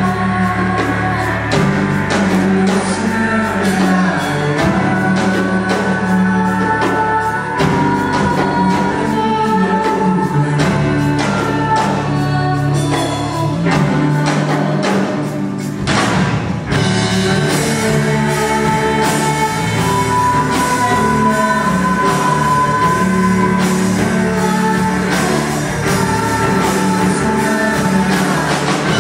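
Live band performing a Batak folk song in a pop-rock arrangement: several singers over a drum kit keeping a steady beat and electric guitar, with a cymbal crash about halfway through.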